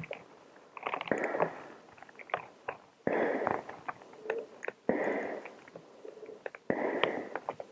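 A person breathing in and out while wearing a chemical protective suit: a breath sound roughly every two seconds, with small clicks and rustles between the breaths.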